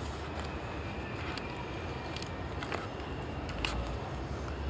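Steady low outdoor background rumble, a little stronger in the second half, with a few faint short clicks as a small paper packet is handled.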